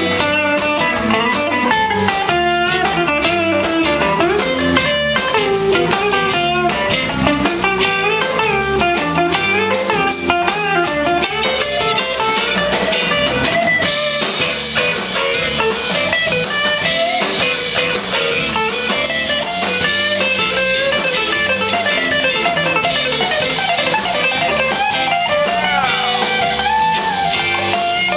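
Live blues band: a lead electric guitar solo on a hollow-body archtop, with bent notes, over drums and bass, with no vocals.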